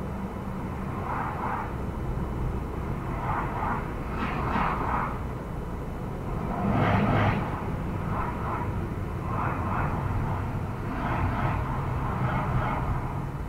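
Steady engine and road noise of a car driving, heard from inside the cabin. Irregular swells of louder noise come and go every second or two, the loudest about seven seconds in.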